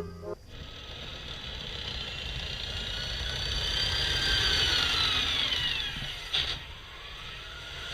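Military tank engine running, a low rumble with a high whine that rises and then falls in pitch, growing louder toward the middle and then fading, as if the tank drives past. A short click comes near the end.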